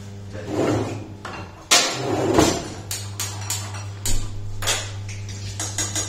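Kitchen clatter: pots and utensils handled and set down, making a string of knocks and clinks over a steady low hum. The loudest knock comes about two seconds in.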